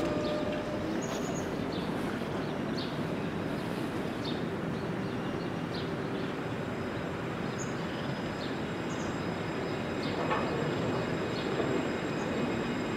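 Steady city street noise at a tram stop, with a few faint, short high chirps and a faint click about ten seconds in.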